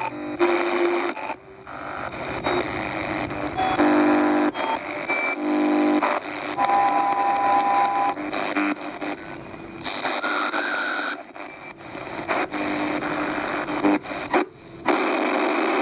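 Souness SNI-F100 portable radio being tuned across the AM band: hiss and static with short whistling tones and snatches of signal that come and go, cutting out briefly a few times as the tuning knob turns.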